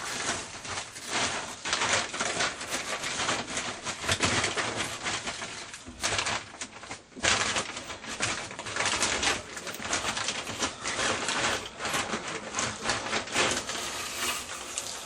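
Rough, irregular scraping strokes of a tool on metal: rust being scraped off the steel top of an old Whirlpool washing machine. There is a short pause about six seconds in.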